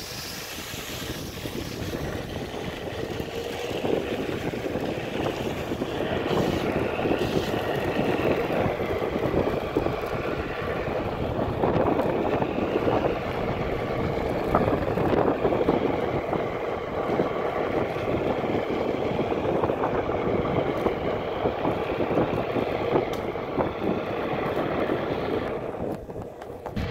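Onewheel electric board rolling fast downhill on pavement: steady wind rushing over the handheld phone's microphone mixed with the board's hub-motor hum and tyre noise, with a faint steady whine. It drops briefly just before the end.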